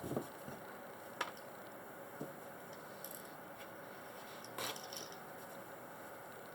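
Quiet room tone broken by a few faint clicks and small handling noises, with one brief, slightly louder rustle about four and a half seconds in.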